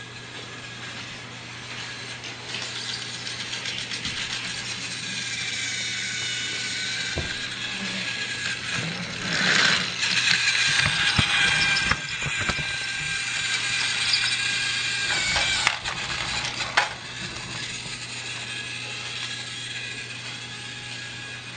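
Battery-powered motorised toy train running on plastic track: a small electric motor whines and the wheels and gears click steadily. A louder clatter comes about halfway through, and two sharp knocks come near the end.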